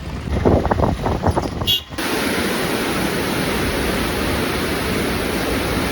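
Brief mixed background noise, then, after an abrupt change about two seconds in, a steady, even rushing of fast-flowing floodwater at a river barrage.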